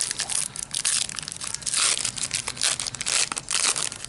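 Foil trading-card pack wrapper being torn open and crinkled in the hands: a steady run of sharp crinkling crackles, loudest in clusters about one, two and three and a half seconds in.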